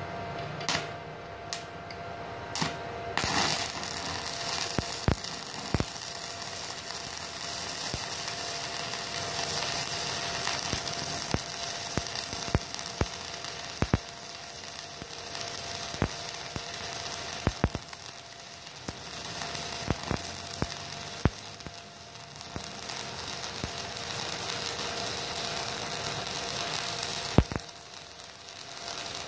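Stick-welding arc from a 2.6 mm E6013 rod at maximum amperage on a MOSFET inverter welder. A few sharp clicks come before the arc catches about three seconds in; after that it burns with a steady hiss and scattered sharp pops.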